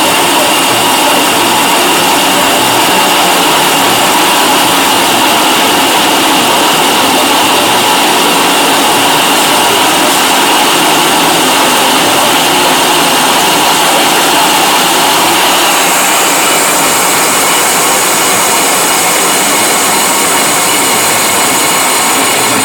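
Milling machine cutting a metal casting: a loud, steady grinding rush of the cutter with high whines over it, the whine shifting in pitch about three-quarters of the way through.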